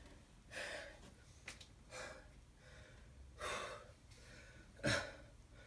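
A man gasping for breath, four heavy breaths about a second and a half apart, the last the loudest: winded from a one-minute maximum-reps set of bar dips.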